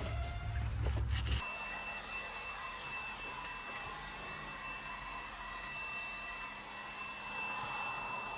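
A small electric motor running with a steady high-pitched whine over a hiss. A deeper, louder sound underneath cuts off abruptly about a second and a half in.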